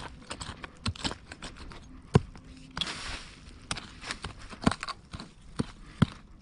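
Small hand mattock chopping into forest soil and dry leaf litter: a series of sharp strikes at irregular intervals, with a brief scrape and rustle of soil and leaves about three seconds in.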